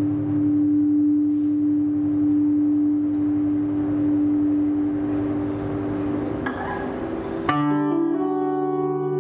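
Electric guitar through a small amplifier, playing held droning tones that swell into a noisier wash. About seven and a half seconds in, the sound switches suddenly to a new, brighter sustained chord.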